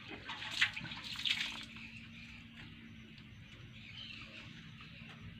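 Hand scraping grated coconut across a banana leaf and dropping it into a steel mixer jar: a few soft rustles in the first second and a half, then only a faint steady hum.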